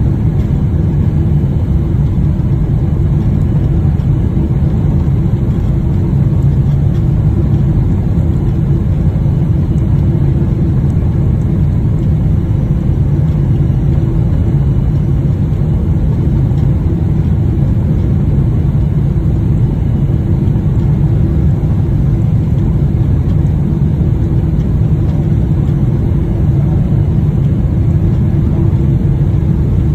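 Steady, low-pitched cabin noise of an airliner's jet engines and rushing air on final approach, heard inside the passenger cabin.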